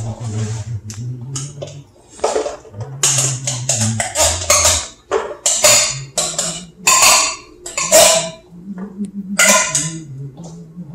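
Canned kidney beans being shaken and scraped out of an upturned tin can into an aluminium foil pan: a quick run of short, sharp rustling and scraping noises.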